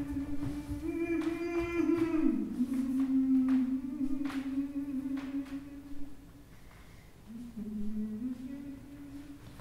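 A performer's voice humming long held notes that slide in pitch, pausing about six and a half seconds in before resuming on a lower note. A few soft knocks sound underneath.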